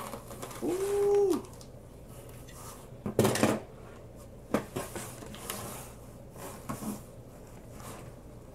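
Cardboard shipping box being cut open and rummaged, with scrapes, rustles and knocks as a heavy cast-iron weight plate is pulled out; the loudest clatter comes about three seconds in.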